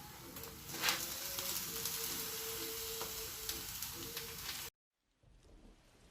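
Food sizzling and crackling in hot oil in a frying pan, with faint background music. It cuts off abruptly near the end.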